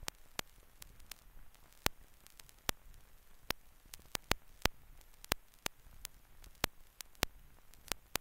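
Crackle of an old film soundtrack with no programme sound: sharp clicks and pops at irregular intervals, about two a second, over a faint hiss.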